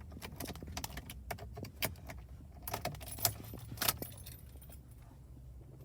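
Car keys on a flip-key remote jangling and clinking as they are handled: a quick run of sharp metallic clinks over the first four seconds or so, then quieter.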